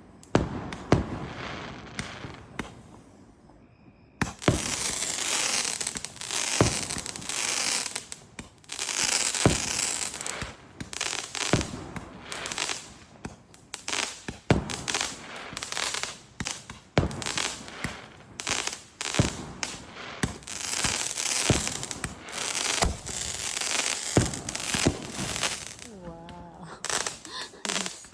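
Fireworks display: repeated sharp booms of exploding aerial shells, with long stretches of dense crackling from about four seconds in.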